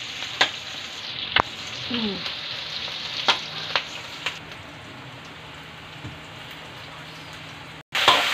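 Meat, onion and garlic sizzling in oil in a wok, with a metal spatula scraping and clinking against the pan a few times in the first half. Near the end the sound cuts out briefly and comes back louder, with raw chicken gizzards freshly added to the hot oil.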